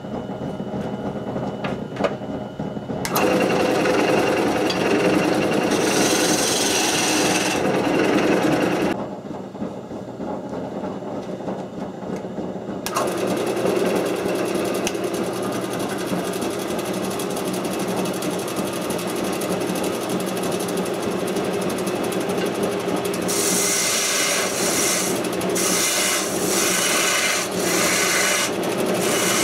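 Wood lathe spinning a spindle blank while a gouge cuts into it: a steady rasping scrape of the tool on the wood over the lathe's motor hum. The cutting stops for a few seconds about nine seconds in, then resumes, turning brighter and choppier near the end as shavings fly.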